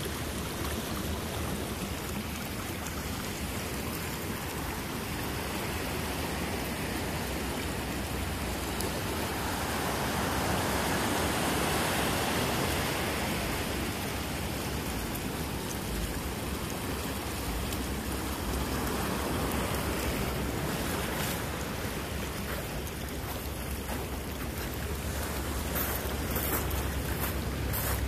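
Steady rushing of a storm-swollen creek running across the beach, mixed with the wash of ocean surf, swelling a little for a few seconds near the middle. A few short crackles near the end.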